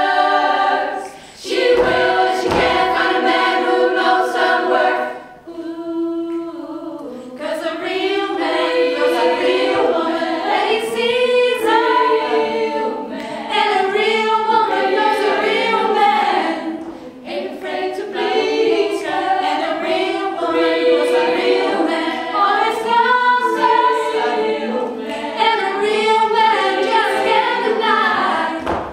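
Women's a cappella vocal group singing in close harmony, held chords at first, then after a brief quieter passage about six seconds in, busier rhythmic lines.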